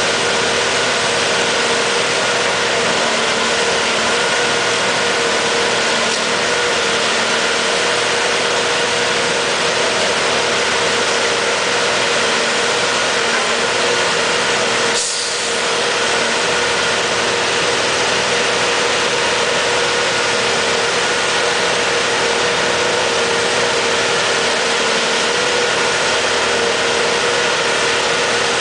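Railway tie-inserter machine's engine and hydraulics running steadily as its clamp head works a new crosstie under the rail, a constant hum with a steady higher tone over it, briefly dipping about halfway through.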